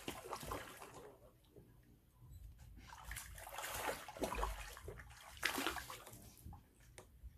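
Water splashing and sloshing in irregular bursts, loudest a little past the middle: a hooked fish thrashing at the surface.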